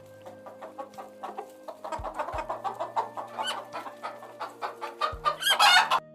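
Chickens clucking in a rapid series of short calls, with one louder, longer call near the end.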